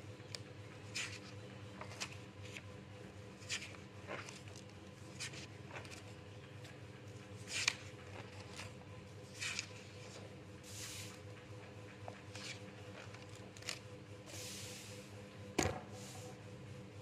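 Spiral sketchbook paper rustling and swishing in short strokes as pages are turned and smoothed flat by hand. A sharp knock comes near the end.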